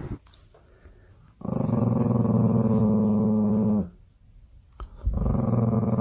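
Small white dog growling, two long, steady, low growls: the first starts about a second and a half in and lasts a little over two seconds, and the second begins about five seconds in.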